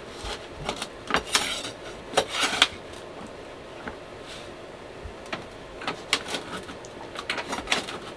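A metal blade scraping and clicking against a metal baking sheet in short, irregular strokes, prying loose a pizza that is stuck to the pan.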